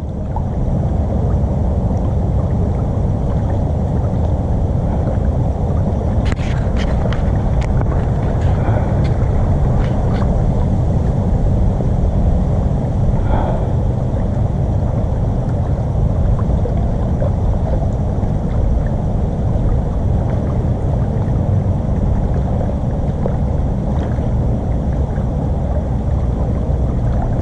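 Wind buffeting the microphone, a steady low rumble, with a few faint clicks about six to ten seconds in.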